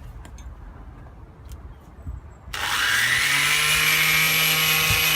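Power sander with a sanding disc switched on about halfway in, spinning up quickly to a steady run with a high whine. It is being started to sand the curb damage out of an alloy wheel.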